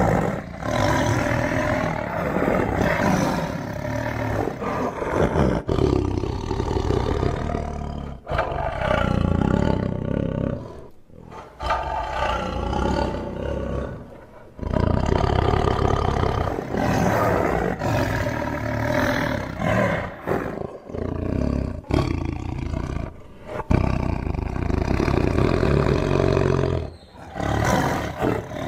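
Tiger roaring and growling in a run of long calls, each lasting a few seconds, with short breaks between them.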